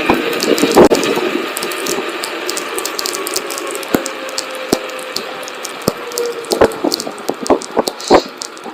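Electric unicycle ride: a steady hiss with many irregular sharp clicks and knocks, the loudest about a second in and near the end, and a faint whine that slowly sinks in pitch through the middle.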